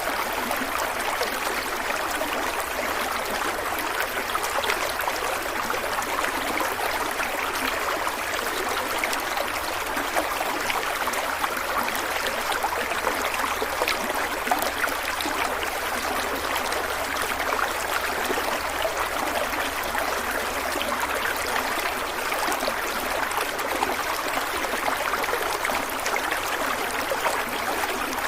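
A stream of water flowing steadily over rocks, a continuous rushing and babbling with no change in level.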